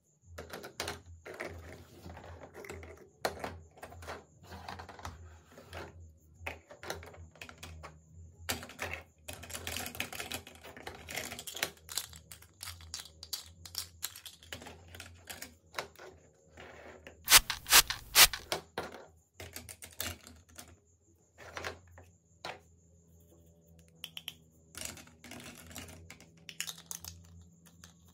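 Small hard-plastic toy kitchen pieces clicking, tapping and knocking together as they are handled: a toy knife, spoon, strainer and pot. A short cluster of sharper, louder clacks comes a little past halfway.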